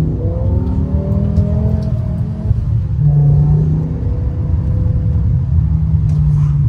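BMW M5 E60's V10 engine heard from inside the cabin, pulling the car along under throttle. Its note shifts in pitch during the first half, then holds steady through the second half.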